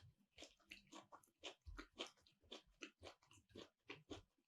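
Faint close-up chewing: soft, wet mouth clicks and smacks, about three a second, from a person eating.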